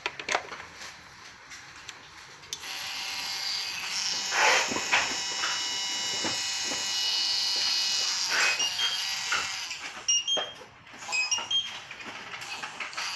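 Small motor of a 12 V handheld mini electric grinder whining steadily from about two and a half seconds in until about ten seconds, with a few clicks, then a few short whines at changing pitch near the end.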